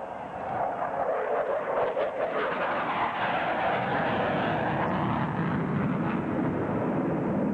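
F-14 Tomcat fighter's jet engines, a steady roar heard from the ground as the jet flies a display manoeuvre, growing deeper about halfway through.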